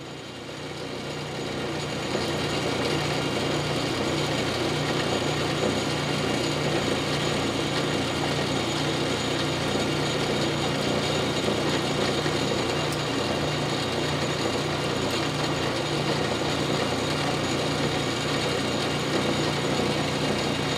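South Bend Model A lathe running with its spindle turning while a center drill in the tailstock chuck is fed slowly into the end of a drill-rod workpiece. The sound builds over the first two seconds and then holds steady, with a constant low hum under the machining noise.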